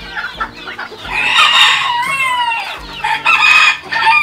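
Young bantam cockerel crowing: one long crow starting about a second in, its pitch falling away at the end, then shorter calls near the end.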